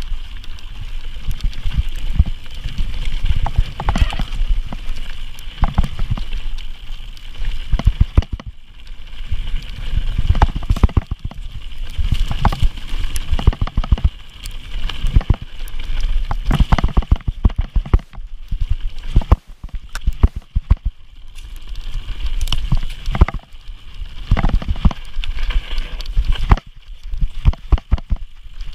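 Mountain bike descending a rough dirt trail: the bike rattles and clatters over rocks and ruts in dense, irregular knocks, with wind buffeting the microphone in a heavy low rumble.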